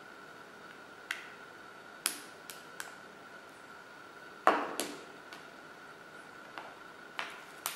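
Small clicks and taps of a watch strap tool and rubber watch strap parts being handled and set down on a hard tabletop, about nine in all, irregularly spaced, the loudest about halfway through.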